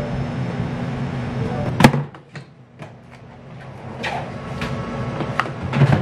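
A paring knife clicks against a plastic cutting board as fresh cherries are halved, over a steady kitchen hum, with one loud sharp click just before two seconds in. After that the hum drops away, and a few separate clicks and knocks follow, the last near the end.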